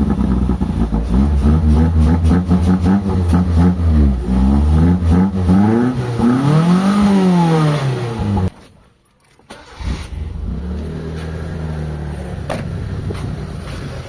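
Carbureted Mitsubishi 4G13 four-cylinder engine, just restarted after hard starting, being revved up and down several times. About eight and a half seconds in the sound cuts off abruptly, and after about a second it runs again, quieter and steadier, at idle.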